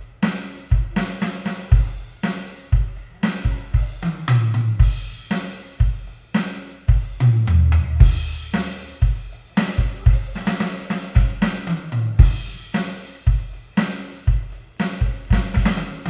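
Electronic drum kit played with sticks: a steady beat of bass drum, snare, hi-hat and cymbals, broken by heavier tom fills about four seconds in and again around halfway.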